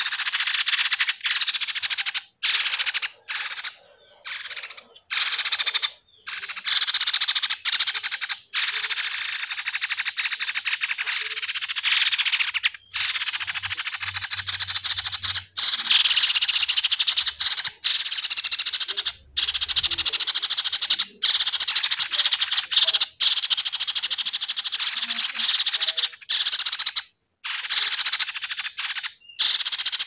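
Nestling songbirds giving loud, raspy begging calls: fast buzzing runs of one to a few seconds, broken by short pauses, made while they gape to be fed.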